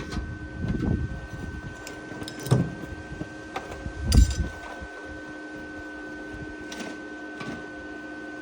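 A few scattered knocks and clunks of handling, the loudest about four seconds in, over a steady electrical hum.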